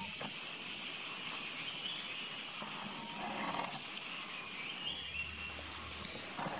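Forest ambience: a steady high hiss with a few short, high chirps scattered through.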